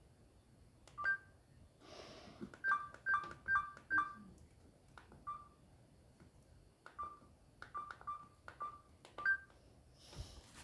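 Samsung GT-C3593 mobile phone's keypad beeping as its keys are pressed: short two-tone beeps, each with a key click. There is a quick run of about six presses a few seconds in, then scattered presses.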